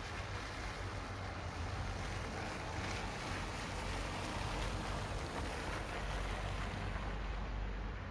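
Steady rushing noise of wind, with low buffeting on the microphone, and a car's tyres hissing on the wet road as it drives past; the noise swells a little in the middle.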